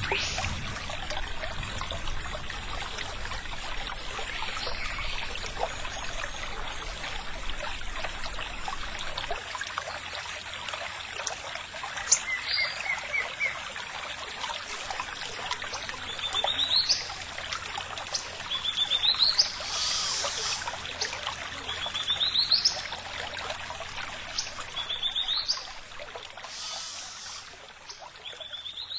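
Steady trickle of running water, with a bird calling repeatedly over it. From about halfway, each call is a quick run of notes sweeping upward, coming about every three seconds.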